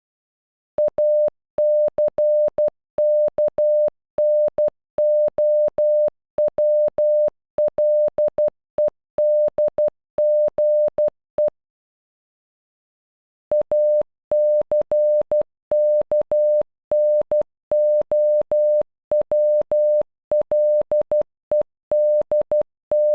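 Morse code for the word ACKNOWLEDGE played as an electronic beep of one steady pitch, keyed on and off in short dots and longer dashes. The sequence runs through once, pauses for about two seconds near the middle, then starts again.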